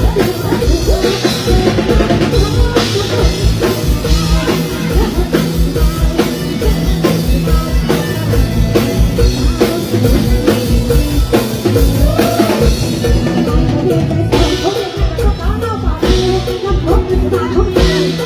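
Live mor lam band music amplified over a stage PA, with a steady drum-kit beat and sustained bass notes.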